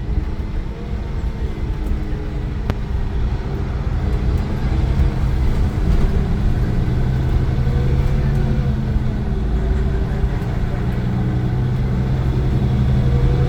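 Iveco Crossway LE 12 bus's Cursor 9 diesel engine and ZF automatic gearbox running under way, a steady low drone that grows somewhat louder about halfway through.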